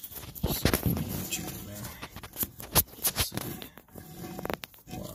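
Handling noise close to the microphone: irregular clicks, taps and rustles from a hand-held camera and hands working under the vehicle, with a sharper tap a little under three seconds in.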